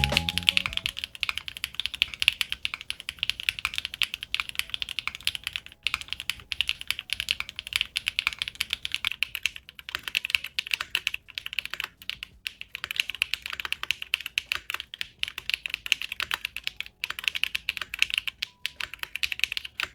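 Fast, continuous typing on a KKB (Keykobo) RC759 mechanical keyboard: a dense run of crisp key clicks, broken by a few short pauses.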